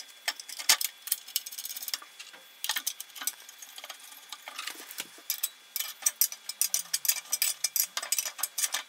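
Light metallic clicks and ticks, some in quick runs, from a hand tool working the bolts that fix a bandsaw table to its tilting trunnion while they are tightened.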